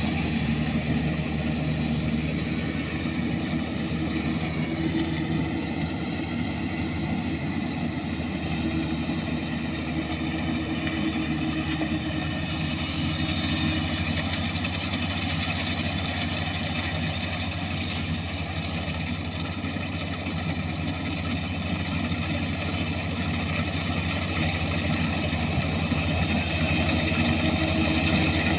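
Kubota combine harvester's diesel engine running steadily under harvesting load, a constant machine drone with several even tones that grows a little louder near the end.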